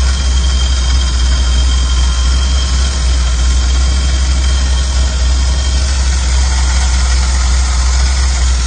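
1985 Chevy van's engine idling steadily, warmed up with coolant circulating through the newly replaced heater core after the air bubbles were bled out.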